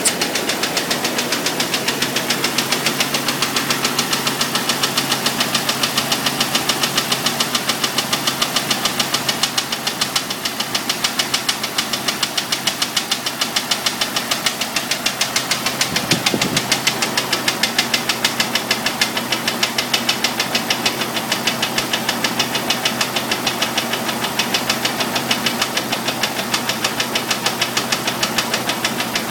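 Jeep Cherokee XJ's 4.0L straight-six idling with a steady, evenly spaced knock, the sound of a broken piston skirt.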